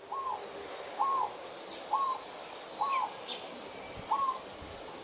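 A zebra dove cooing for attention in courtship: five short coos about a second apart, each rising then dropping at the end. A small bird chirps faintly and high in the background.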